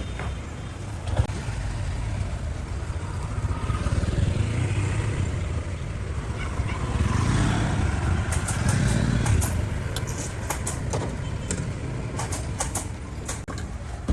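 Street traffic with motorbikes running past, swelling and easing, and a run of sharp light clicks and taps in the second half.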